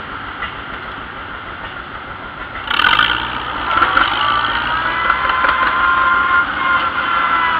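Vintage farm tractor engine running, jumping louder about three seconds in and then picking up speed as the tractor pulls away down the road.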